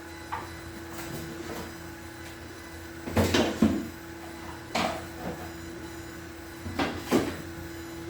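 A few short knocks and rattles, in three groups, over a steady faint hum.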